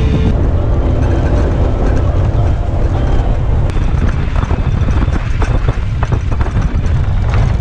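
Outboard-powered skiff running at speed across choppy water: a steady low engine and hull rumble mixed with wind on the microphone. It grows rougher about halfway through, with irregular thumps and buffeting.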